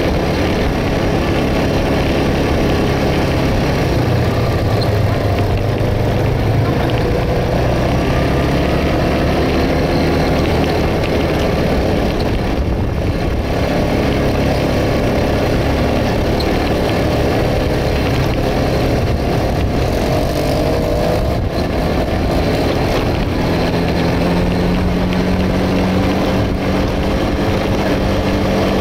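Quad bike (ATV) engine running under way on a dirt track, its note rising and falling with the throttle, climbing to a higher steady pitch near the end.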